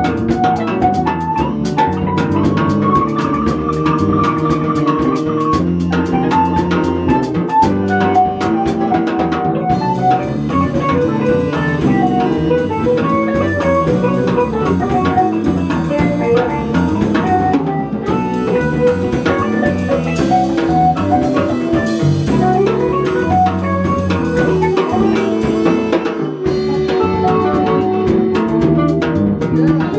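A small live band playing an instrumental jazz piece: drum kit with cymbals keeping a steady groove under electric guitar, bass and saxophone, with sustained melody lines drifting up and down.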